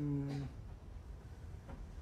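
A man's short, low hum, about half a second long and dipping slightly in pitch, at the very start. After it there is only a steady low background rumble with a faint tick.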